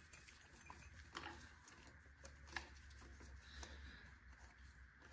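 Near silence with a few faint clicks and light rubbing of a hex key on the Allen-head bolts of a dirt bike's exhaust header as they are worked loose.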